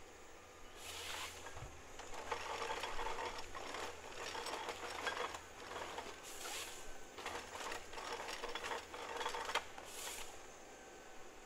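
John Deere 1270E harvester working its head on windthrown trees, heard at a distance as repeated bursts of mechanical buzzing and rattling, several seconds apart.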